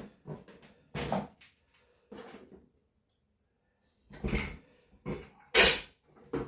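Loose metal parts (brackets, bolts, washers and nuts) clinking and clattering as they are picked up and sorted by hand, in about six separate knocks with the loudest just after the middle.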